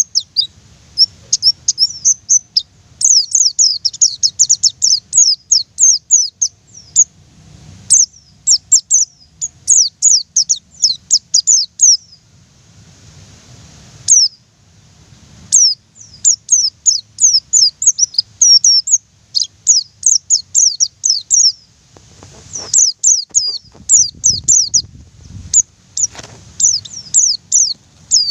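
White-eye (pleci) singing in long runs of rapid, high, thin chirps, broken by a pause of about three seconds near the middle.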